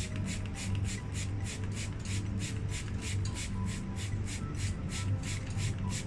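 Hand-held plastic trigger spray bottle misting water in quick repeated squirts, about three a second, each a short hiss.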